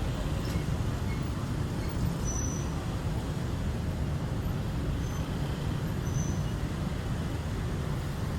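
A steady low rumble of outdoor noise, like traffic or wind, with a few short, high-pitched chirps.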